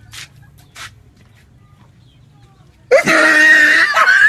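A person screaming loudly, starting suddenly about three seconds in and breaking into pulses near the end, after a quiet stretch with two brief scuffs.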